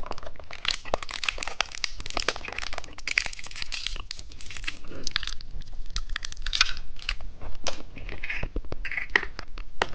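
Plastic candy wrapper crinkling and being torn open by hand, a steady run of irregular crackles.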